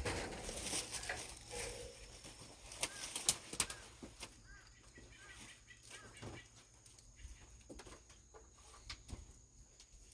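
Birds chirping a few short times, over rustling and several sharp knocks in the first few seconds, the loudest knock about three seconds in.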